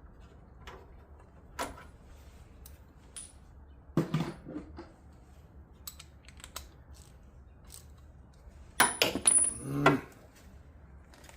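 Metal hand tools clicking and clinking while a spark plug is being removed. There are a few separate knocks, then a quick clatter of metallic clicks about nine seconds in.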